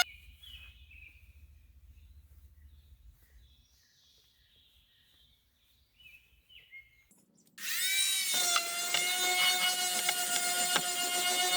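Electric sander stops, leaving several seconds of quiet with a few faint small sounds, then is switched back on about two-thirds of the way through, its motor winding up in pitch to a steady whine as it sands the boat's inside.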